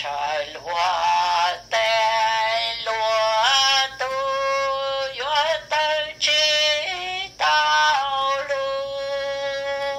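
A solo voice singing slow, long held notes, sliding up or down between pitches, with short breaths between phrases.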